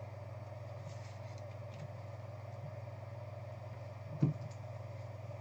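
Steady low electrical hum, with faint clicks and rustles of trading cards and a clear plastic card holder being handled, and one soft knock about four seconds in.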